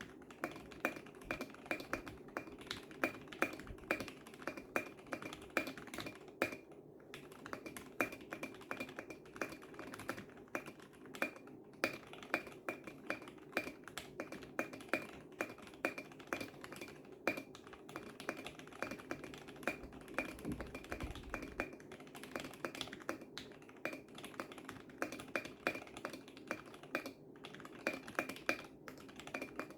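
Typing on a gasket-mount mechanical keyboard with lubed Gateron Yellow linear switches: a fast, continuous run of key strokes, broken by two brief pauses.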